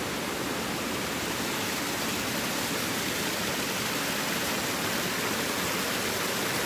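Shallow rocky river flowing over small cascades and boulders: a steady, even rush of water.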